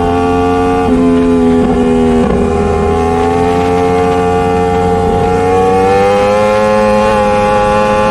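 Hero Splendor's single-cylinder engine running under way. Its pitch dips briefly about a second in and again about two seconds in, then rises gradually as the bike speeds up.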